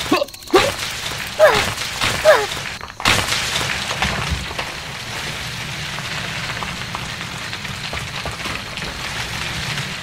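Three short, falling, squeaky cartoon-like calls, then from about three seconds in a steady whirring hum from the small electric motor of a toy tractor.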